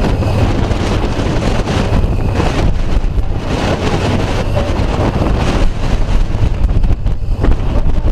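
Strong wind of a fire whirl buffeting the microphone: a loud, gusty rumble.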